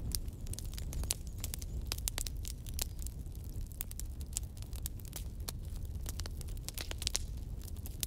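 Wood fire burning on a fireplace grate: split logs crackling and popping in quick, irregular snaps over a steady low rumble of flame.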